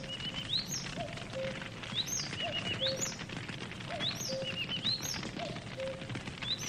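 Campfire crackling and popping steadily, with a bird call of short chirps and rising whistles repeating at an even pace, about every second and a half.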